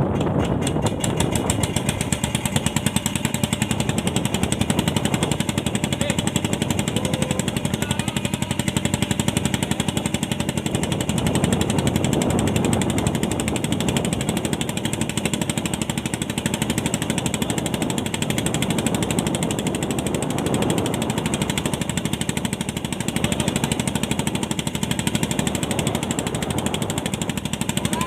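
Fishing boat's engine running with a rapid, even knocking beat that starts abruptly and holds steady.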